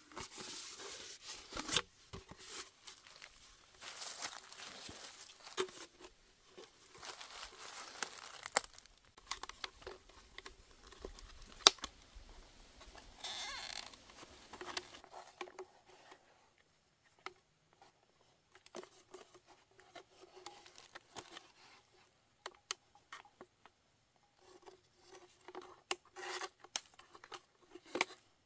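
Hands working a clear plastic bottle and strips of black rubber while assembling a bottle rat trap: crinkling and scraping plastic with scattered clicks and taps. It is busy in the first half, sparser after, and picks up again near the end.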